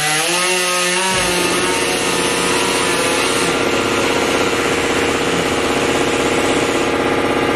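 Small handheld power tool whining steadily as it cuts into the plastic front bumper of a 2005 Honda CR-V. Its pitch wavers during the first second, then holds steady as a lower rumble joins in.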